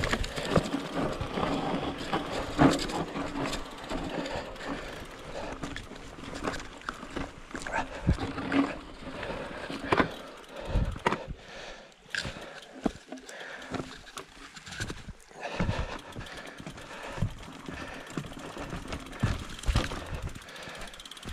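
Votec 29er mountain bike ridden over a rough trail: constant tyre noise from the ground with frequent knocks and rattles from the bike.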